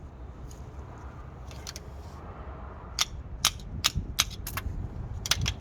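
Ratchet wrench snugging the caliper bracket bolts: a run of sharp metallic clicks, about eight, starting about three seconds in.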